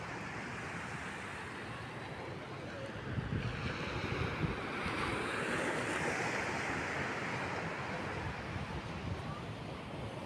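Ocean surf washing on a wide beach, a steady rush that swells louder in the middle, with gusts of wind buffeting the microphone.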